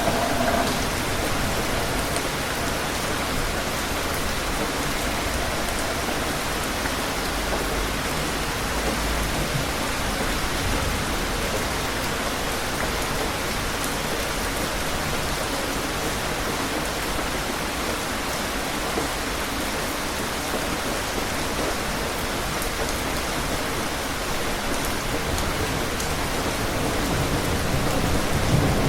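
Steady rain falling, an even hiss of drops, with distant thunder rumbling low: once about a third of the way in and again near the end, where it swells a little louder.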